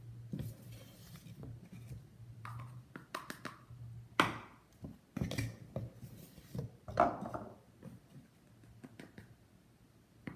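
A plastic measuring cup scooping and scraping cornstarch out of its container: irregular scrapes and knocks, the loudest about four and seven seconds in, over a faint low hum.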